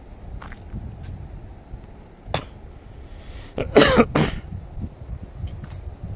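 Footsteps walking on a paved path, with two short coughs close together about four seconds in.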